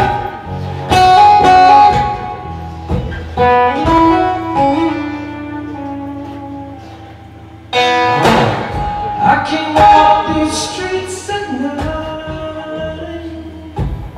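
Instrumental passage of a live acoustic song: chords struck and left to ring out, with loud strikes about one and two seconds in, a softer held passage in the middle, and new strikes about eight seconds in.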